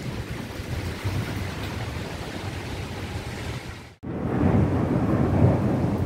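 Heavy thunderstorm rain, a steady rush. About four seconds in it cuts out for an instant and comes back louder and deeper.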